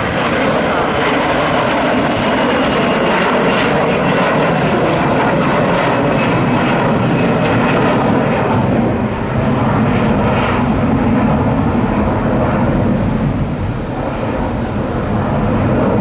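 Twin jet engines of an Airbus A321-200 at go-around thrust as the airliner climbs away from an aborted landing: a loud, steady jet noise that eases slightly near the end.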